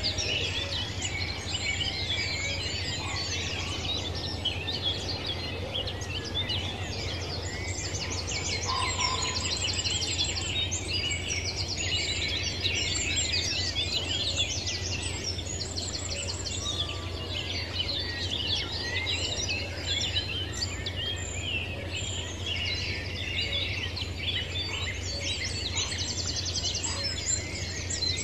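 A dense chorus of many wild birds chirping, trilling and singing all at once, over a steady low hum.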